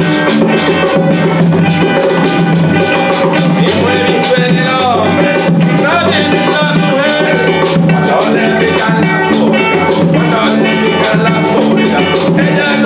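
Live band music: harmonica over electric bass and acoustic guitar with a steady percussion beat, giving way to a man singing.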